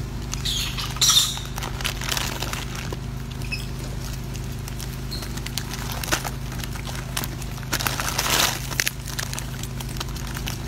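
Monkeys feeding at a pile of bananas and papaya: scattered rustles, scuffs and clicks as the fruit is grabbed and handled, over a steady low hum. The loudest bursts come about a second in and again around eight seconds.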